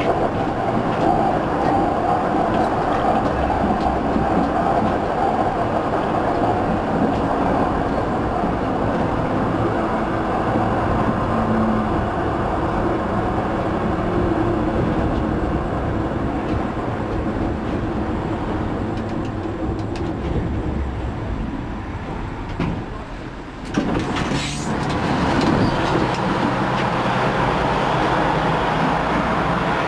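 EGT6 tram running on its rails, heard from the driver's cab: a steady rumble of wheels and motors with a faint hum. It grows quieter about three-quarters of the way through, then a short, sharp sound comes before the running noise picks up again.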